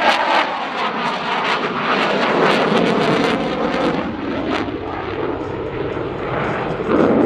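CF-18 Hornet fighter jet's twin General Electric F404 turbofans at high power with afterburners lit, a loud continuous jet noise whose pitch slides as the jet flies past. The noise swells again near the end.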